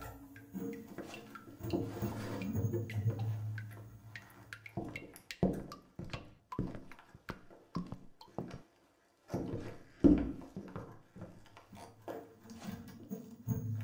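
Sparse, irregular sharp clicks and knocks, with a faint low hum in the first few seconds.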